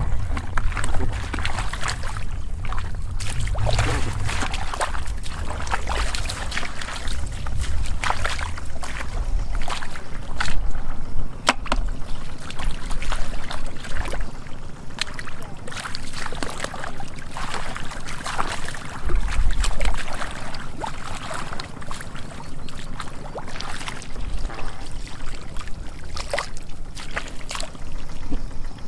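Hands splashing and sloshing in shallow muddy water while groping for fish, with many short splashes scattered throughout. A low rumble comes and goes underneath.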